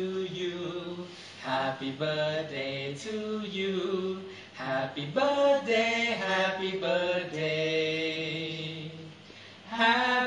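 Background music: a voice singing a slow melody with long held notes.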